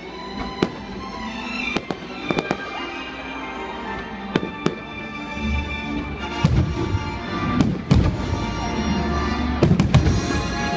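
Fireworks display going off in sharp bangs every second or so, over music. In the second half the bangs come thicker, with a deeper rumble under them.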